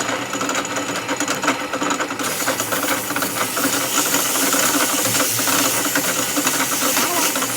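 Steady workshop machine noise with a fast, dense clatter; a loud hiss joins about two seconds in and carries on.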